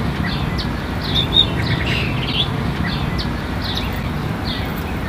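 Small birds chirping in short, repeated calls, about two a second, over a steady low background rumble.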